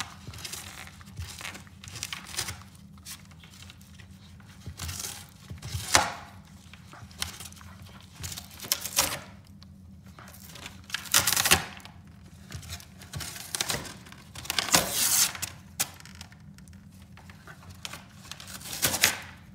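A Corgi tearing and chewing a sheet of corrugated cardboard with its teeth: irregular ripping tears with crinkling in between. The loudest rips come about 6, 11, 15 and 19 seconds in.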